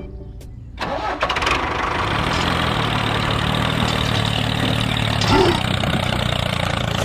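Small engine on a DIY mini tractor model starting about a second in, a few sharp clicks then catching, and running steadily.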